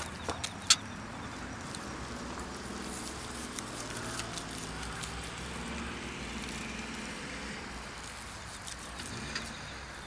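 A motor vehicle passing in the distance, its engine sound swelling over a few seconds and then fading, with a few sharp clicks in the first second.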